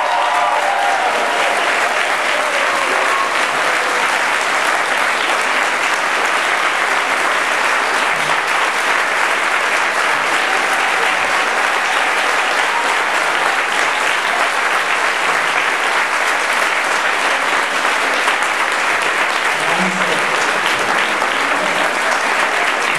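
An audience applauding steadily and at length, a dense, even clapping that does not let up.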